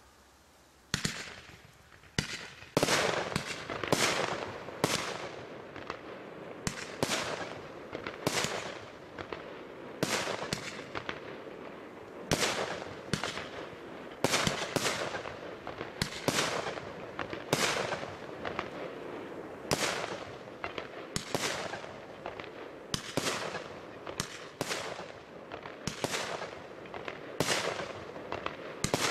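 Firework battery (cake) firing shot after shot, starting about a second in, at roughly one to two shots a second. Each sharp bang trails off in a fading hiss and crackle.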